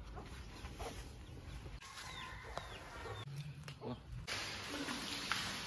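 Faint farmyard fowl: a few short falling chirps and one low, brief cluck-like call about three and a half seconds in. An even hiss grows louder about four seconds in.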